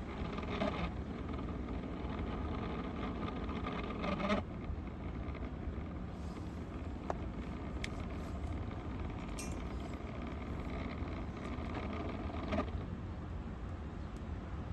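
Electric fan motor running steadily, with a few short knocks.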